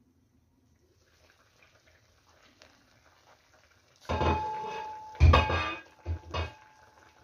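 Metal lid being lifted off a cooking pot, after a few seconds of faint clicks. About four seconds in it clanks and rings with a steady tone, then there is a louder knock and two lighter knocks of metal on metal.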